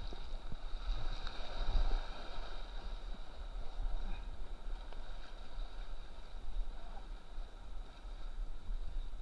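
Rushing whitewater around a kayak with paddle strokes splashing, and wind and water buffeting the helmet camera's microphone in a low rumble; loudest about one to two seconds in.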